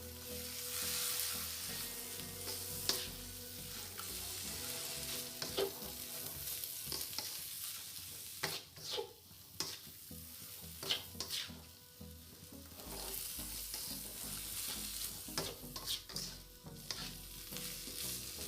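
Bamboo-shoot and shrimp lumpia filling sizzling in a frying pan as it is stirred, with repeated scrapes and clicks of the spatula against the pan.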